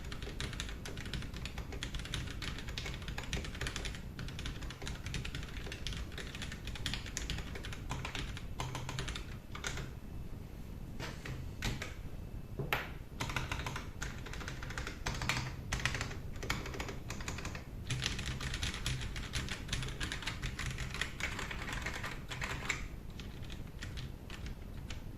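Typing on a custom mechanical keyboard fitted with Boba U4T tactile switches. The keystrokes come in fast runs, with a sparser stretch of single key presses partway through.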